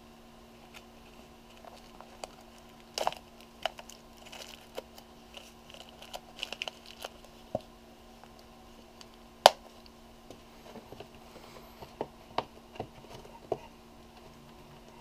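Handling noises from a Polaroid 180 camera and its carrying case: scattered clicks, taps and light rustles, with the sharpest click about halfway through.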